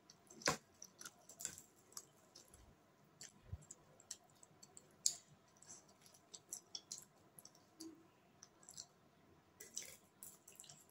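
Eating sounds: chowmein noodles being chewed, with irregular soft clicks and scrapes of a fork against a foil-covered plate. The sharpest clicks come about half a second in and about five seconds in.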